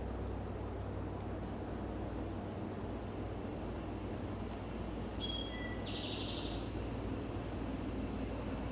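Steady low noise of distant highway traffic, with a few short high bird chirps a little past halfway through.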